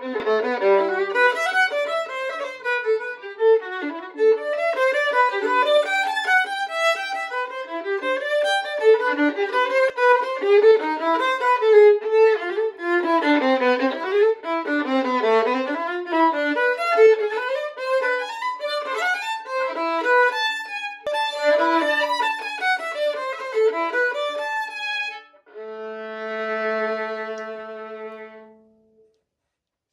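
Solo violin playing a classical excerpt: a quick passage of many bowed notes, ending on one long held low note, about 25 seconds in, that fades away.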